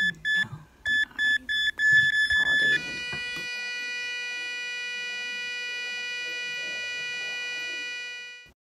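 Electronic beep sound effect: a quick string of short high beeps, with a faint voice between them. About three seconds in it turns into one long steady tone that runs on and cuts off shortly before the end.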